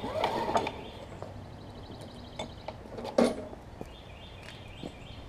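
Two pulls on the recoil starter of a Briggs & Stratton Classic push-mower engine, one at the start and one about three seconds in. The engine turns over with a whir and a sharp burst but does not catch: it has a stuck intake valve.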